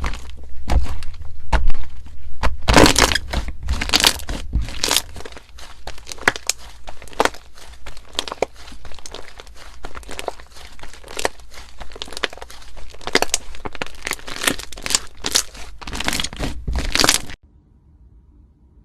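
Slime being squeezed and worked by hand, making dense, irregular crackling and popping. It stops abruptly near the end.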